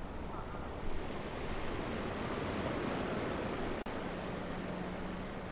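Steady rushing of ocean surf breaking on a shingle beach, mixed with wind on the microphone, swelling about two to three seconds in. Just before four seconds the sound drops out for an instant, and a low steady hum joins after it.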